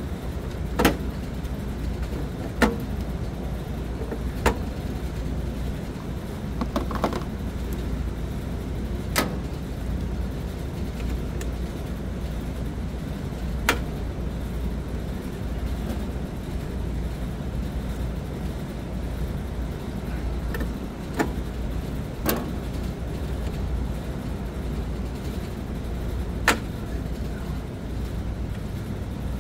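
Cartridge fuses being pulled from and snapped into a control panel's fuse holders: a series of sharp clicks, spaced a few seconds apart, over a steady low rumble.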